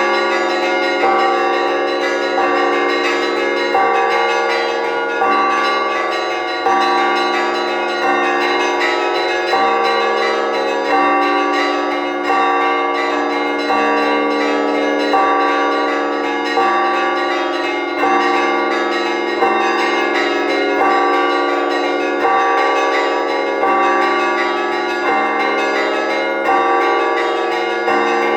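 Church bells rung in a festive peal calling the faithful to the Divine Liturgy: many bells sounding together, with a strong stroke roughly every second over the continuous ringing of the smaller bells.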